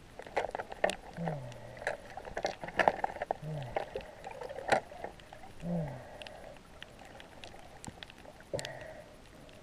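Snorkel breathing at a steady rhythm, about one breath every two seconds, each with a low falling tone, heard muffled through an underwater camera housing. Scattered sharp clicks and splashes of water on the housing run between the breaths.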